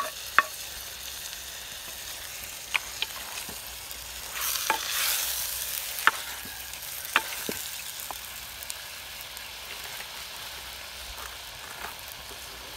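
Mutton pieces sizzling in hot oil while being stirred, with sharp clinks of the stirring spoon against the pot every second or so. The sizzle swells about four seconds in. This is the sauté stage, before water is added.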